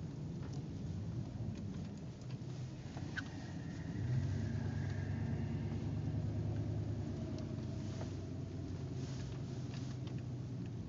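Low wind rumble, with a steady motor hum coming in about four seconds in and running on.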